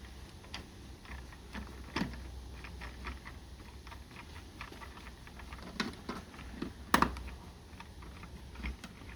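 Scattered small clicks and taps with one sharper knock about seven seconds in: a mounting screw being fitted into a garage door opener's wireless keypad.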